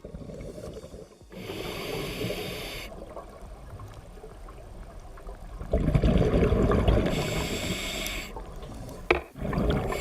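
Scuba diver breathing through a regulator underwater: hissing inhalations alternating with loud, rumbling bursts of exhaled bubbles. A sharp click comes near the end.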